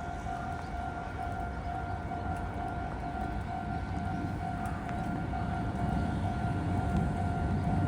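Railway level crossing warning bell ringing with a steady repeating tone, as a train's low rumble builds near the end.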